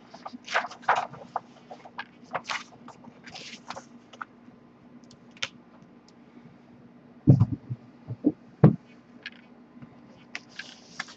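Large paper insert being folded and handled, with crinkling and rustling over the first few seconds. A few dull thumps follow about seven to nine seconds in as items are handled on the table.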